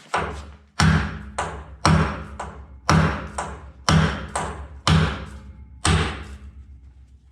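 Hammer blows on a bolt set in a seized rubber-and-steel body mount, driving it down out of a steel truck frame. There is a heavy strike about once a second, each followed by a lighter one, and the metal rings low between the blows.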